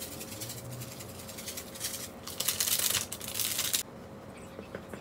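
Crinkly rustling of a small plastic seasoning sachet being squeezed and shaken out over raw chicken, loudest in a burst from about two to nearly four seconds in.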